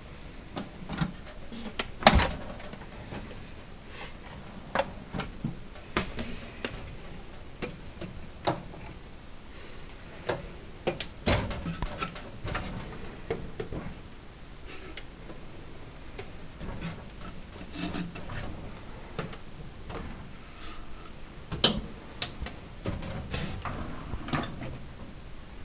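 Irregular clicks, knocks and clunks of toolbox drawers being slid open and shut and tools being handled, the loudest knock about two seconds in.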